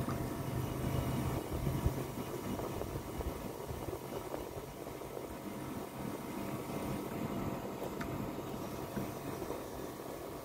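Outdoor unit of a Sharp AH-PR13 R22 air conditioner running, a steady low mechanical hum, while the weakly cooling system is being topped up with R22 refrigerant.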